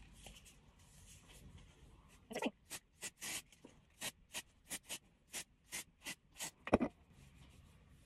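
Sea salt hair spray's finger-pump mist bottle being pressed in quick succession: about a dozen short hissing squirts, roughly three a second, starting about two seconds in.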